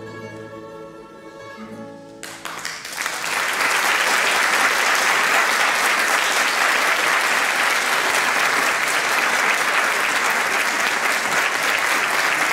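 A plectrum orchestra of mandolins and guitars holds its closing notes. About two seconds in, audience applause breaks out, swells within a second and then goes on steadily.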